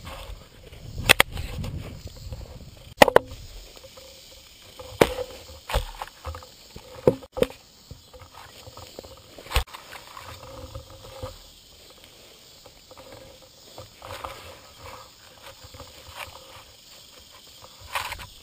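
Handling and wind rumble on a camera strapped to a croquet mallet, broken by about seven sharp knocks spread over the first ten seconds, then quieter.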